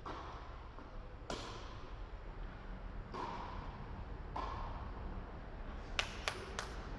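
Racket strikes on a ball during an indoor singles rally, a sharp ringing hit every second or two, then three quick, louder knocks near the end.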